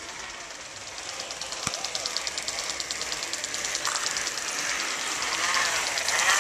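Rapid, even mechanical clicking, several clicks a second, growing louder as it draws closer, typical of a wheeled parade vehicle or bicycle rolling past.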